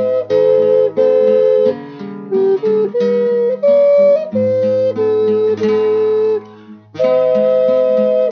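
Wooden double ocarina playing a slow melody in two-part harmony, the two voices moving together in held notes over a lower accompaniment. The music drops away briefly about two-thirds of the way through, then the next phrase comes in.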